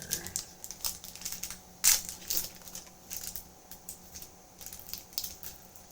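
A Magic: The Gathering booster pack's foil wrapper being crinkled and torn open, with a loud crackle about two seconds in and quieter rustling after.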